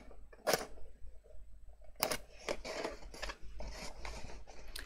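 Hands handling and pressing a small cardstock gift box: a few sharp clicks and taps of card, the loudest about half a second and two seconds in, with soft rustling of card between.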